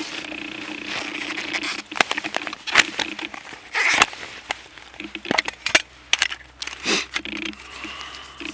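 Clicks, knocks and scrapes of a small metal tin being handled and opened, with a tealight candle taken out, among the rustle of a poncho.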